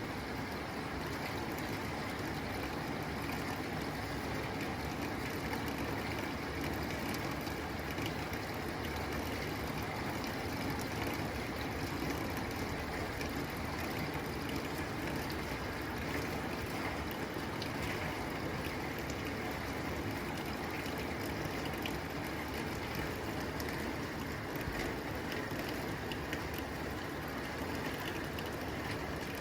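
Steady rain drumming on a tin roof, a dense even patter of drops on sheet metal.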